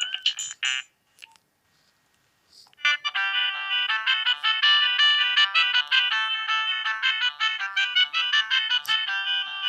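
Nokia 3510 mobile phone playing its built-in ringtones. A warbling, siren-like tone stops within the first second. After about two seconds of near silence, a fast, bright melody with several notes at once starts about three seconds in and keeps going.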